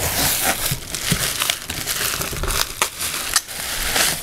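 Bubble wrap crinkling and crackling against cardboard as hands pull wrapped items out of a packed shipping box, with scattered small clicks and rustles.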